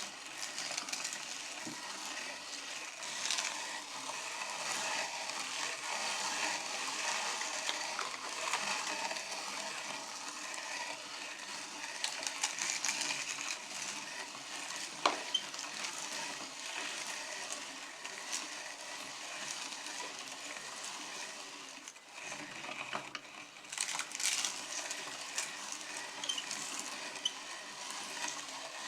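Meat grinder crushing potato chips: a continuous crunching and crackling with many small sharp cracks, easing briefly about two-thirds of the way through before picking up again.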